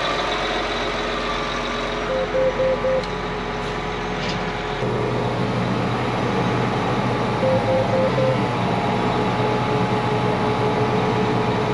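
Tractor engine running steadily while its warning alarm sounds two groups of four short beeps, the low hydraulic warning for hydraulic oil that is way low. About five seconds in the engine note changes and a deeper hum sets in.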